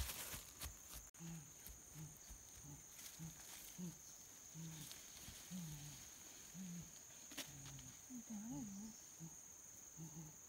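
A series of short, low grunting notes, about two a second, with a longer wavering call about eight seconds in. Behind them runs a steady, high insect buzz.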